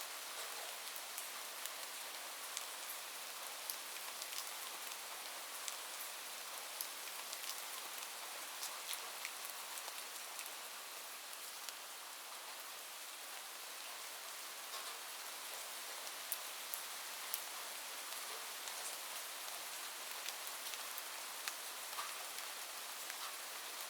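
Light, gentle rain falling steadily: an even soft hiss with many scattered individual drops ticking on a surface.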